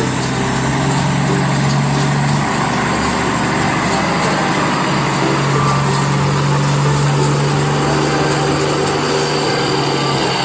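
An engine running steadily with a low hum, the hum dropping back for a few seconds midway and returning.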